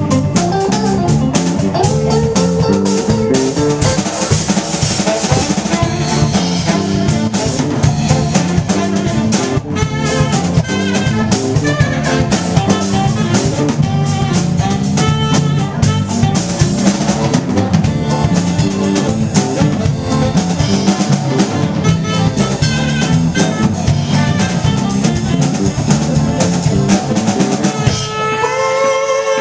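A live rock band playing: electric guitar over a drum kit and bass, with steady drum hits throughout.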